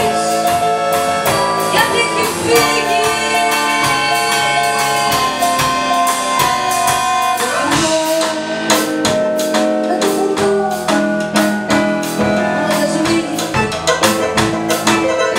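Accordion, keyboard and drum kit playing an instrumental passage of a tango arrangement, with sustained melody notes over a steady beat; the drumming grows busier about halfway through.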